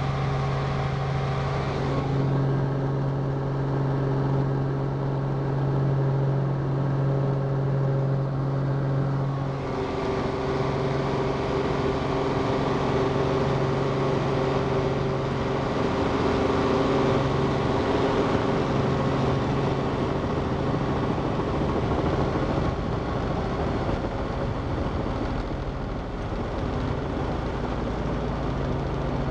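Cabin noise of a Robinson R44 II helicopter in flight: its six-cylinder Lycoming piston engine and rotors make a steady low drone. The tone shifts twice, at about two and ten seconds in.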